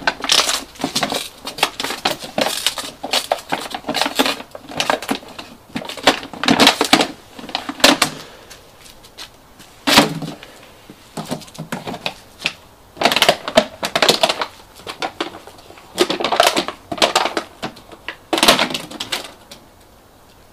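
A dog chewing and crushing an empty plastic PET bottle: irregular bouts of crackling and crunching plastic, with short pauses between them.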